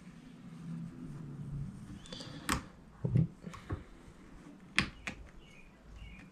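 Handling noise at a fly-tying vise: a low murmur, then about five sharp clicks and taps as hands work stuffing and thread onto the hook.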